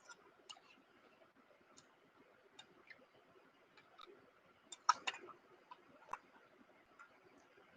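Faint, irregular small clicks and ticks from eating, with the loudest cluster about five seconds in.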